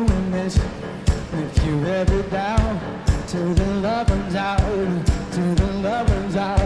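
Background music: a pop-rock song with a steady drum beat, about two beats a second, under a melody line.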